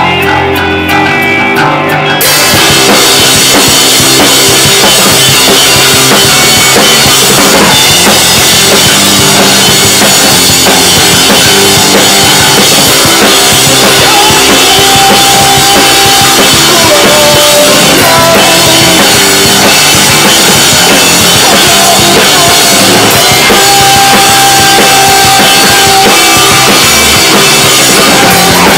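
A live rock band plays loud: electric guitar alone at first, then about two seconds in the drum kit and bass come in and the full band plays on together, with cymbals and kick drum prominent.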